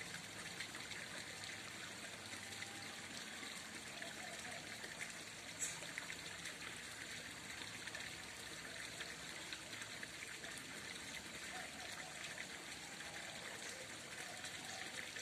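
Faint, steady trickle of running water into a fish pond, with one sharp click about six seconds in.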